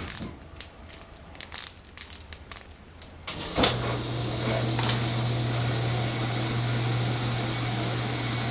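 Power drill driving a copper wire stripper. The first three and a half seconds hold only scattered clicks and handling knocks; then the drill starts with a sharp jolt and runs steadily.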